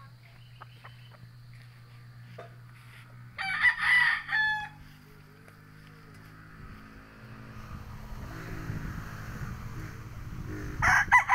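A rooster crows twice, a long call about three and a half seconds in and another starting near the end, over a steady low hum.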